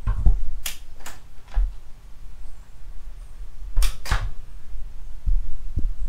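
Plastic retaining clips on a Mitsubishi split air conditioner's indoor unit being unsnapped by hand: sharp clicks in two pairs, one pair about a second in and another about four seconds in, over a low rumble.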